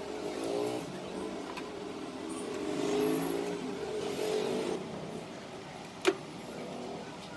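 A motor running with a wavering pitch, swelling and then easing off over the first few seconds, then one sharp knock about six seconds in.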